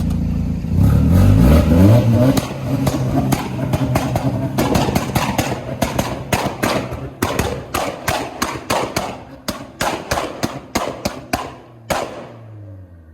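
VW Jetta with an aftermarket downpipe and cat-back exhaust accelerating, the exhaust note rising about a second in. A long run of irregular sharp knocks and clatter follows. Near the end the knocks stop and the engine note falls away.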